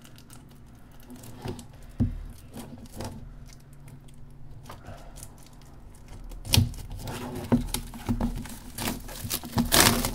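Plastic shrink wrap being torn and peeled off a cardboard box, crinkling. A few light knocks at first, then dense crackling from about six seconds in.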